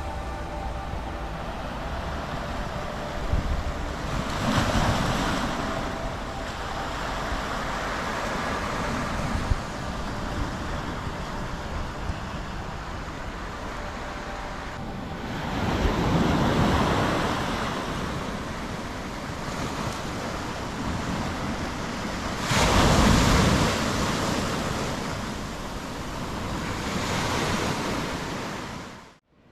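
Sea waves breaking and washing on the shore: a steady surge with three louder washes, cutting off abruptly near the end.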